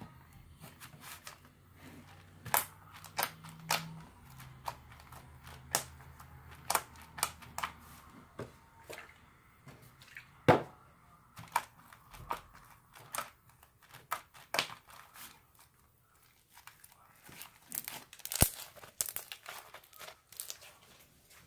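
Green slime with small beads mixed in, handled and pressed for ASMR, giving irregular sharp pops, clicks and crackles.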